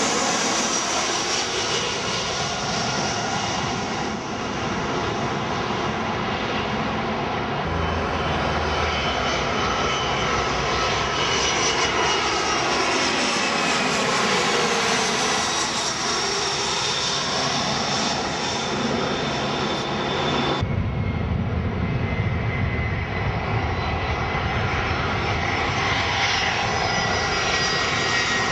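Turbofan airliners on landing approach passing close overhead: a loud steady jet rush with high whining engine tones, some gliding down in pitch as an aircraft goes by. The sound changes abruptly about two-thirds of the way through as one aircraft gives way to the next.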